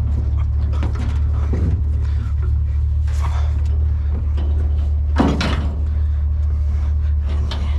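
Metal-framed wicker patio chairs being handled and stacked in a pickup truck's bed, with clattering knocks about three seconds in and a louder one about five seconds in. A steady low rumble runs underneath throughout.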